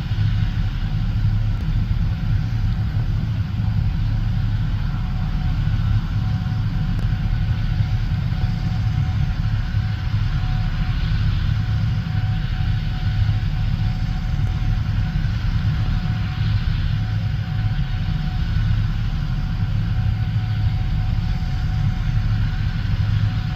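Heavy diesel harvest machinery running steadily: a deep, even engine rumble with a faint constant whine over it.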